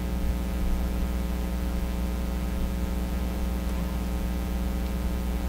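Steady electrical hum with an even hiss underneath, unchanging throughout.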